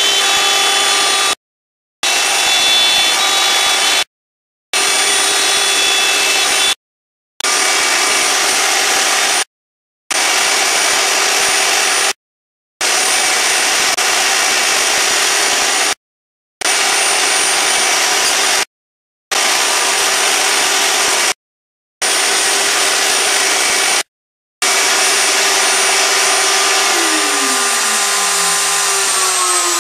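CNC router's spindle motor whining as a 1/4-inch upspiral bit cuts fibreboard, with a shop vacuum running; the sound drops out completely for a moment about every two and a half seconds. Near the end the motor's pitch falls steadily as the cut finishes and the spindle slows.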